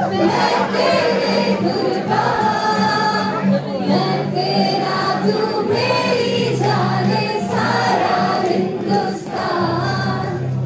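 A song with several voices singing together over a bass line of held notes that change every second or two.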